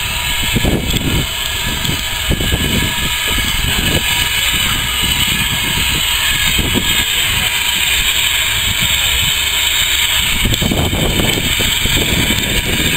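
Small steam saddle-tank locomotive moving slowly at walking pace, with a steady hiss of steam and an irregular low rumble that gets louder about ten seconds in.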